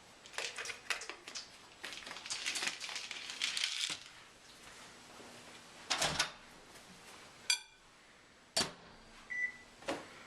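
Rustling and clicking of small objects being handled, then a few sharp knocks, a quick rattle of ticks and one short faint beep near the end.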